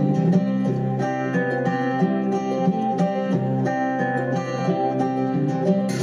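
Background music led by a plucked acoustic guitar, playing a steady repeating pattern of notes.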